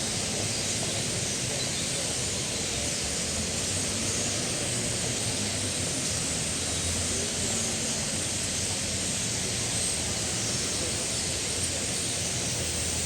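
A large flock of starlings chattering all at once, many quick chirps and whistles blurring into one dense, steady wash of sound, over a low steady rumble.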